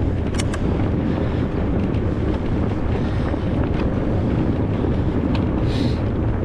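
Steady low wind rumble on the microphone while a fat bike is ridden through snow, with a couple of sharp clicks about half a second in and a brief hiss near the end.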